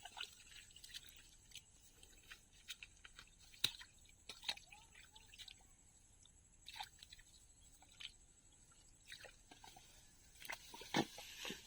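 Faint, scattered wet squelches and drips of mud and water, irregular short ticks with a couple of louder ones near the end.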